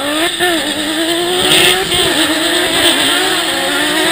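Ice-racing cars' engines revving hard as they pass close by. The engine note climbs sharply at the start, then holds high with brief dips as the throttle lifts and comes back on.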